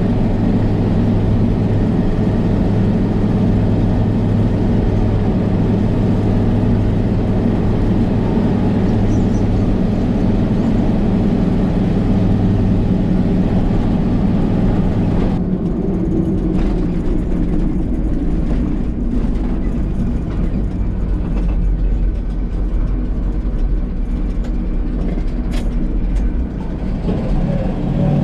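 Ford F800 grain truck's engine and road noise heard from inside the cab, the truck carrying a full load of shelled corn. The engine runs steadily under load, then about halfway through its note drops off and turns rougher.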